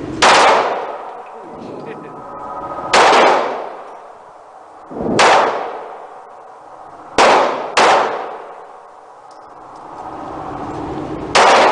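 Glock pistol fired on semi-automatic: six single shots a few seconds apart, two of them in quick succession about seven and a half seconds in, each echoing off the walls of an indoor shooting range.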